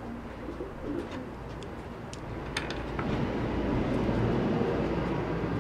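A pigeon cooing, with a few light taps of a marker and ruler on cardboard.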